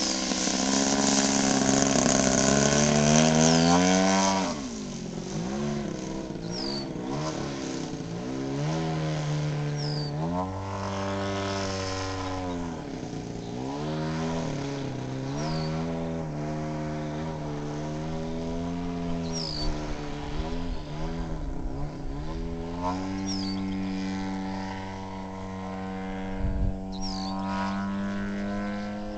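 3W 100 B2 twin-cylinder two-stroke petrol engine of an Aeroworks Edge 540T radio-controlled aerobatic plane, running in flight. It is loudest in the first four seconds, then its note swoops down and back up again several times.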